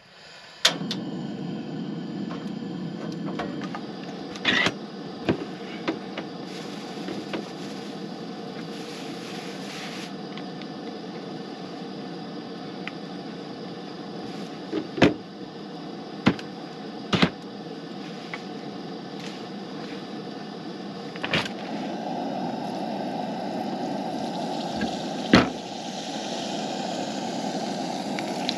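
Propane camp stove burner running steadily under a pan, with sharp clicks and knocks from a knife and utensils on a cutting board. About 21 seconds in it gets louder as hot oil starts to sizzle with potato strips laid in.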